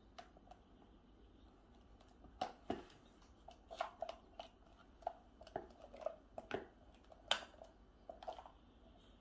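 A baby handling and shaking a plastic snack cup with a lid: scattered light plastic clicks and knocks, about a dozen, the sharpest about seven seconds in.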